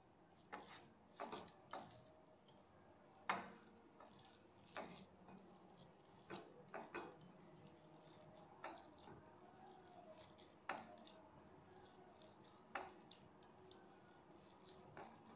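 Faint, irregular taps and clinks of a hand kneading chhana and khoya on a glass plate, fingers knocking against the glass every second or so, with one louder knock about three seconds in.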